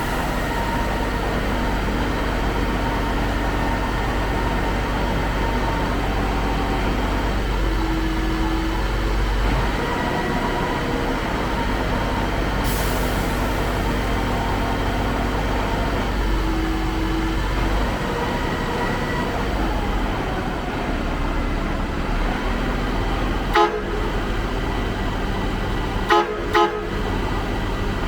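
Concrete pump truck's heavy diesel engine running steadily with a deep rumble. Near the end a vehicle horn gives three short toots.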